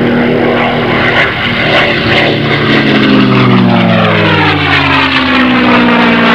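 Propeller-driven light airplane engine running loudly, its pitch sliding steadily lower through the second half.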